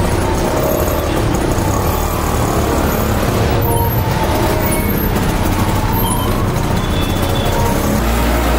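Auto-rickshaw running through city traffic, heard from inside its open passenger cabin: a steady engine and road rumble with surrounding traffic.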